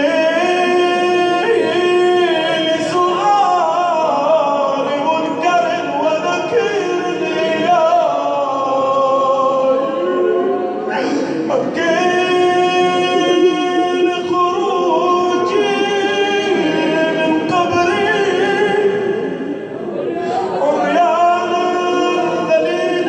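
A man chanting an Arabic supplication unaccompanied, in long, melodic lines with pitch that bends and glides, pausing briefly for breath about halfway.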